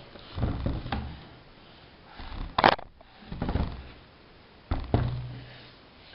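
Handling noise as a heavy speaker dock is gripped and turned around by hand: a few short dull rubs and bumps, with one sharper noise about two and a half seconds in.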